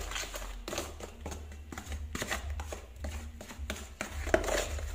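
Wooden spoon stirring runny chocolate icing in a plastic bowl, with irregular wet scraping strokes against the bowl over a low steady hum.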